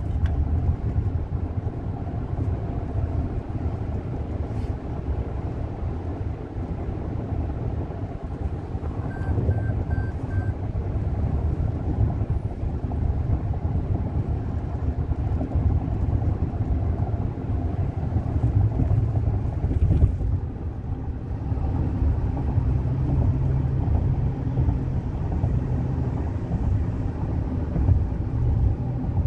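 Steady road and engine rumble of a car on the move, heard from inside the cabin. About ten seconds in, four short, evenly spaced beeps sound over it.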